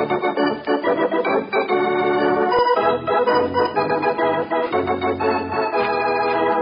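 Organ playing a musical bridge between scenes of an old-time radio broadcast, a run of held chords.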